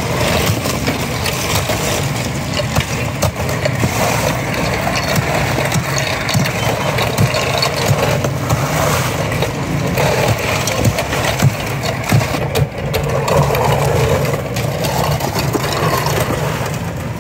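Block ice being worked by hand: at first a toothed hand saw rasping through an ice block, then chunks of ice crunching and scraping as they are scooped and packed into a cooler. A steady engine hum runs underneath.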